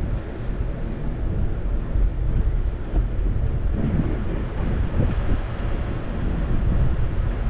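Wind buffeting the microphone during a bicycle ride: a continuous low rumbling rush that swells and dips.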